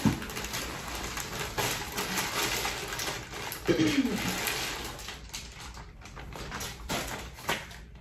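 Clear plastic packaging bag crinkling and rustling as it is handled and pulled off a new vacuum's main body, in a quick run of crackles. A short sound falling in pitch cuts in about four seconds in.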